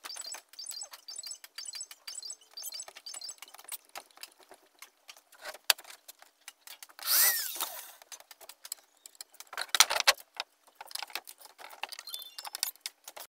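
A small plywood-top table with wooden legs and metal corner brackets being handled on a wooden floor: scattered clicks and knocks, a brief scraping squeak about seven seconds in, and a cluster of knocks about ten seconds in.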